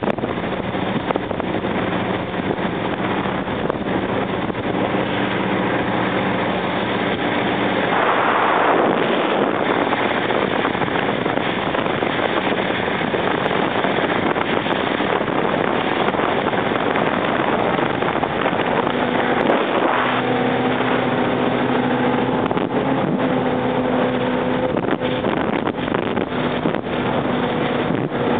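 Sutphen Rum Runner powerboat underway at speed: its engines running steadily under wind and the rush of water along the hull. A louder rush of noise comes about eight seconds in, and the engine note shifts about two-thirds of the way through.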